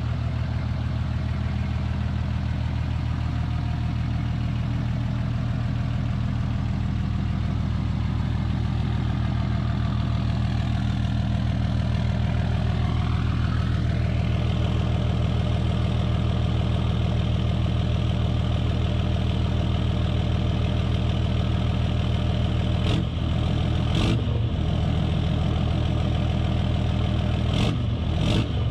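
Ram 2500's 6.7-litre Cummins inline-six turbodiesel idling steadily through a 5-inch straight pipe with no muffler. About halfway through, a faint whine rises in pitch, and a few sharp knocks come near the end.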